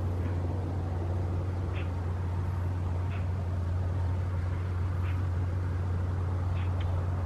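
A steady low engine drone that holds constant throughout, with short faint high chirps every second or so.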